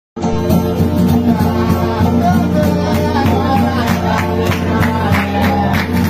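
Vanuatu string band music in the John Frum style: men singing together over strummed instruments with a quick, steady beat of about four strokes a second. It starts abruptly right at the start.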